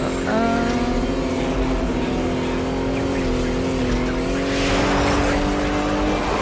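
Cartoon vehicle engine sound effects running steadily, shifting slightly in pitch, with a hissing swell about five seconds in.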